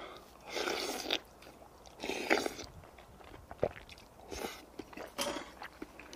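Close-up eating sounds: slurping spoonfuls of shepherd's purse doenjang soup and chewing, in several short slurps.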